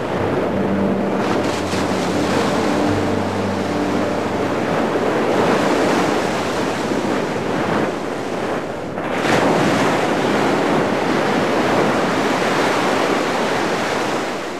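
Rough sea: waves breaking and sloshing, with wind buffeting the microphone, surging louder about nine seconds in. A faint low engine hum sits underneath for the first few seconds.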